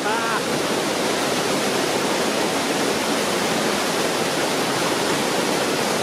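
Creek water rushing down a small waterfall into a rock pool: a loud, steady, even rush of water.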